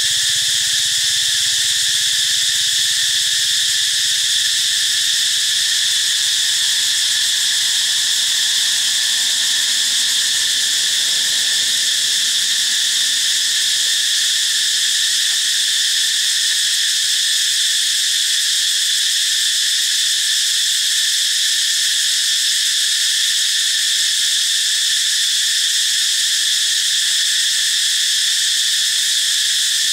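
Steady insect chorus: a continuous shrill drone that neither rises nor falls and has no breaks.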